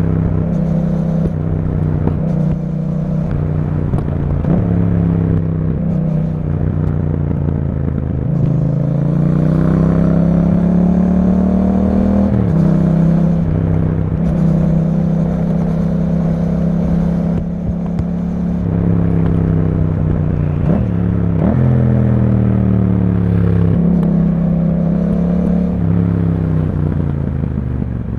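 2021 Yamaha MT-07's 689 cc parallel-twin engine breathing through an Akrapovic exhaust with dB killers installed, riding in traffic. The engine note rises and falls between acceleration and easing off, with a few abrupt pitch changes at the gear shifts.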